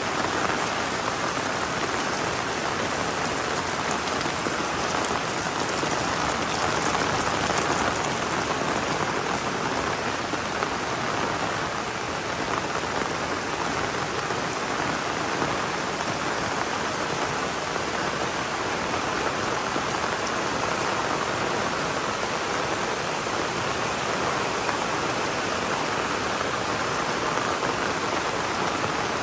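Heavy tropical rain falling steadily and densely, a continuous even hiss of downpour on surfaces.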